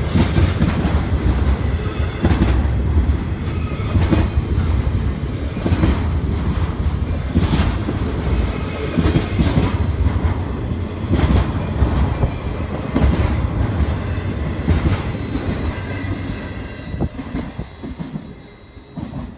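BNSF intermodal freight cars rolling past close by: a heavy steel-wheel rumble with a sharp clack every second or two as the wheel sets cross rail joints. The sound fades away near the end as the last car goes by.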